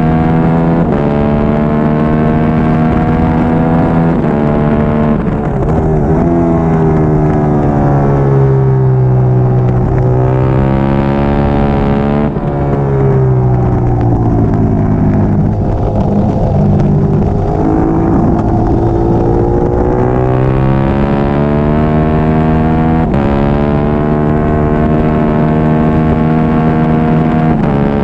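A Triumph Daytona 675R's three-cylinder engine running hard on a road course. Its pitch climbs and drops sharply at each upshift, about a second in and again near five seconds. It falls away slowly through the middle as the bike slows for a corner, then climbs again, with further shifts near the end.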